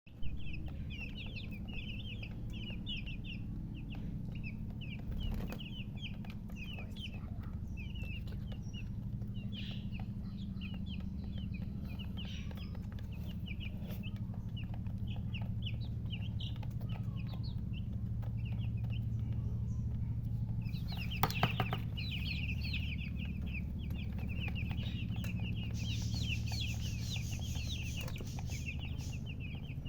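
Newly hatched chicks peeping continuously, many short high-pitched chirps overlapping, over a steady low hum. A few sharp clicks come about two-thirds of the way through.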